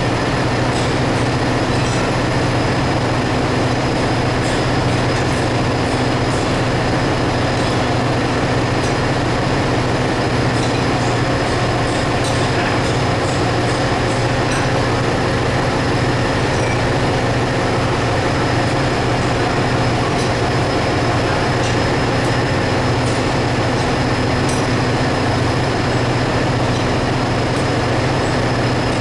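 Ship's engine-room machinery running: a loud, steady drone with a low hum and a thin high whine, and a few faint metallic ticks.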